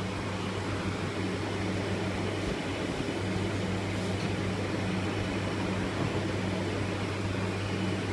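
A steady low machine hum under an even background noise, unchanging throughout.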